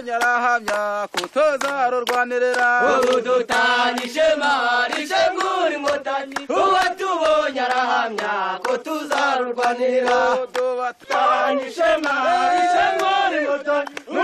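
A group of armed fighters singing a war song together in loud unison chant, many male voices.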